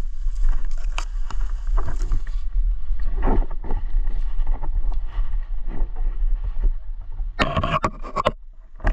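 Irregular scraping and rustling over a steady low wind rumble on the microphone. A louder burst of pitched sound comes about seven and a half seconds in and lasts under a second.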